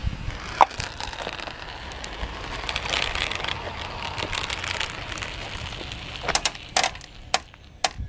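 A group of marbles rolling together down a plastic Hot Wheels track, a continuous rattle that swells midway. Near the end come a few sharp clicks as marbles knock against each other and the track.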